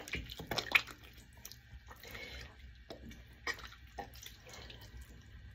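Irregular light drips and splashes of water at a bathroom sink, with small wet clicks.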